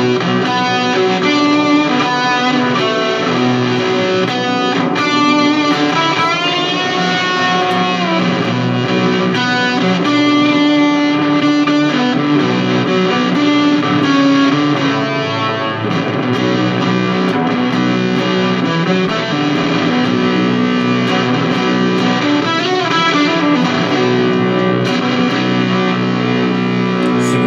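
Electric guitar on the bridge pickup, played through an Old Blood Noise Endeavors Haunt Fuzz into an Orange Crush 35RT solid-state practice amp. It gives fuzz-distorted sustained notes and chords, with a few sliding notes.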